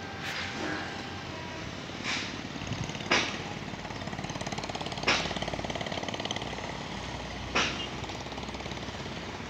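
Truck engines running among road traffic, with a fast rattling pulse, broken by four sharp knocks: at about two, three, five and seven and a half seconds in.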